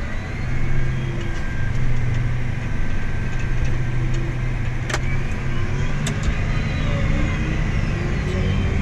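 Vehicle engine running steadily, with two sharp clicks about five and six seconds in.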